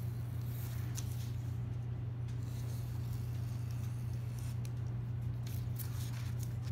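Rotary cutter rolling through printer paper on a cutting mat, then light paper rustling as the trimmed pages and cut-off strips are handled, over a steady low hum.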